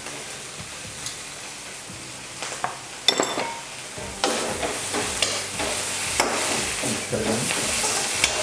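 Nasi goreng paste sizzling in a frying pan, faint at first; after a sharp tap about three seconds in, the sizzling grows louder from about four seconds as a spoon stirs and scrapes it with repeated clicks.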